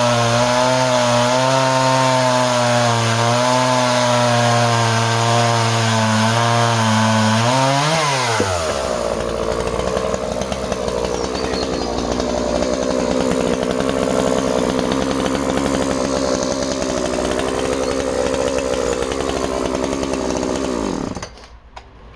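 Two-stroke chainsaw running at high throttle through a round of ash, its engine note wavering under load. About eight seconds in the note changes to a rougher, noisier sound of chain cutting wood. The saw stops near the end.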